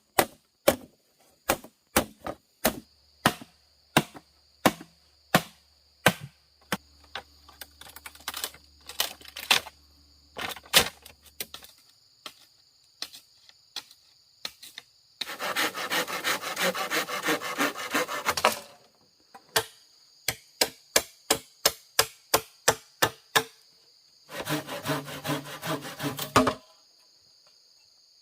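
Wood being chopped with a blade, in steady sharp strikes about two a second, broken twice by a few seconds of fast rasping strokes on wood. Insects buzz steadily underneath.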